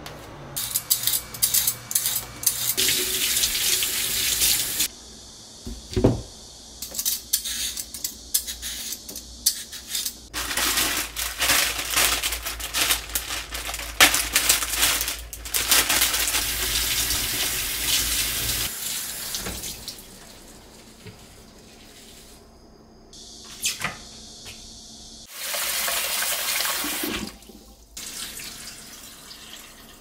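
Kitchen faucet running in several bursts into a stainless steel sink, water splashing as food is rinsed under it, with a few clinks and knocks between. Near the end, water is poured off washed rice from a pot into the sink.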